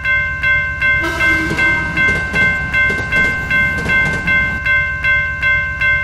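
Railroad crossing warning bell ringing rapidly, about two and a half strikes a second, with a train running past in a low rumble from about a second in. It cuts off suddenly at the end.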